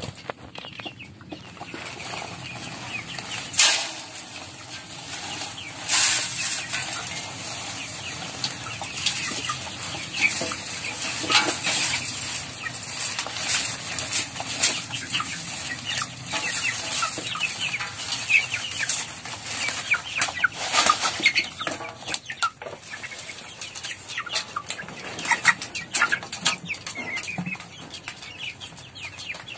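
A flock of chickens clucking and cheeping around a feeder, with wings flapping and scattered sharp knocks and clicks, the loudest a few seconds in.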